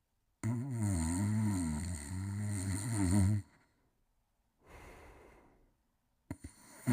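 Sleeper snoring: a loud, low buzzing snore on the in-breath lasting about three seconds, followed by a quiet breath out. A short click comes near the end, just as the next snore begins.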